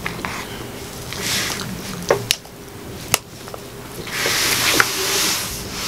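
A plastic fork scraping and digging through food in a takeout bowl, with a few sharp clicks as it knocks against the container.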